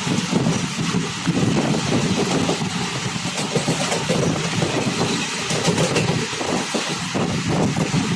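Steady running noise of a moving vehicle, a low rumble with a rushing hiss over it.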